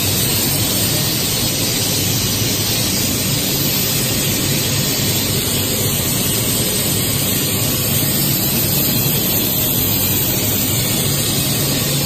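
PVC film extrusion line running: steady, even machinery noise with a faint low hum underneath.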